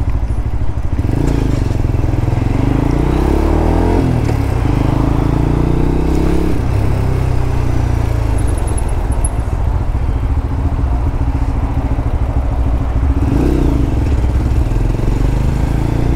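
A Lexmoto LXR 125's single-cylinder 125 cc engine running under way. Its pitch climbs twice in the first several seconds as the bike accelerates, then holds steady, with a short rise again near the end.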